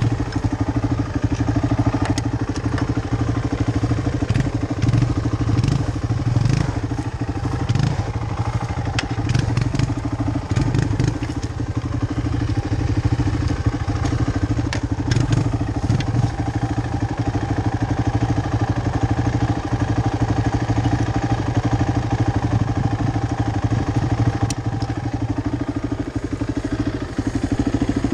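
Quad (ATV) engine idling steadily, with scattered clanks and rattles from a tow strap being worked around the quad's aluminium front bumper, mostly in the first half.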